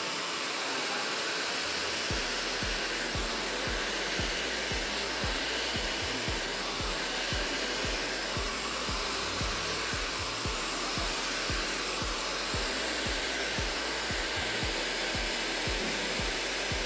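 Hand-held hair dryer blowing steadily on wet hair, with background music with a steady beat, about two beats a second, coming in about two seconds in.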